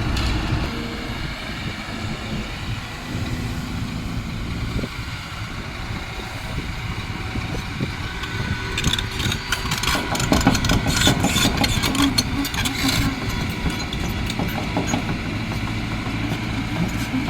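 Kobelco hydraulic excavator's diesel engine running steadily, with a run of sharp clicks and knocks about halfway through.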